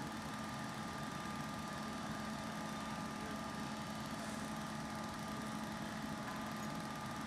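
Fire truck engine running steadily, a constant hum with a faint steady whine above it.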